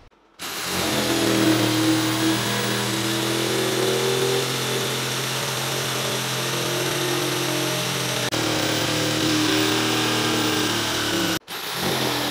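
Hi-MAX electric jigsaw starting up about half a second in and cutting steadily through plywood, its motor and reciprocating blade running with a steady hum; the sound drops out for an instant near the end.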